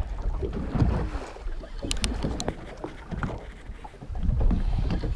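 Wind buffeting the microphone on a boat at sea, a gusty low rumble that rises and falls, with a few sharp clicks about two seconds in.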